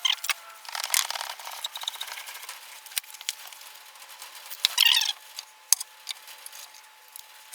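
Wooden offcuts being knocked and broken apart by hand into kindling: a few sharp knocks and clicks, with a louder cracking scrape about five seconds in.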